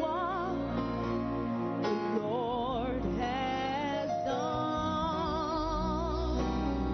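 Gospel praise music: long sung notes with a wide vibrato over a steady instrumental accompaniment.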